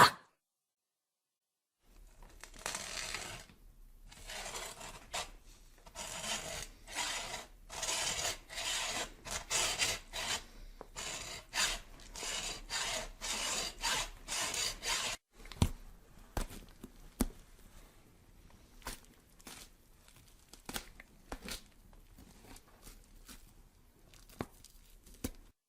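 Repeated rough rasping strokes, one or two a second, like sawing or filing. About halfway through they give way to fainter scrapes and sharp clicks.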